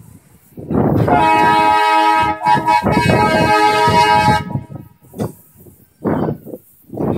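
A vehicle horn sounding: a loud chord of steady tones held for nearly four seconds, broken twice briefly in the middle.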